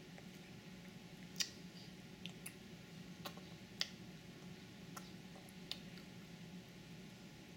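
A baby chewing baguette: a handful of small, sharp mouth clicks and smacks at irregular intervals, over a faint low steady hum.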